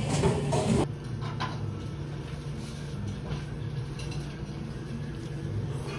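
Running noise of a JR local train: a steady low rumble and hum with a few faint knocks and rattles. A short stretch of background music cuts off abruptly about a second in.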